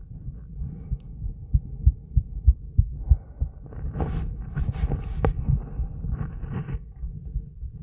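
A woman's heartbeat, close-miked, as a quick, steady run of low thumps. Brief hissing noises come in between about three and seven seconds in.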